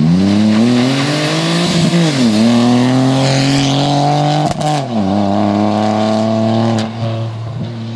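Dacia Sandero rally car under hard acceleration. The engine note climbs, drops back sharply about two seconds in, climbs again, then falls near the five-second mark and holds fairly steady as the car pulls away.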